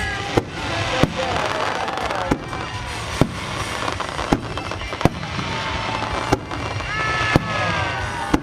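Aerial fireworks bursting, with a sharp bang about once a second over a continuous crackling din, and music playing underneath.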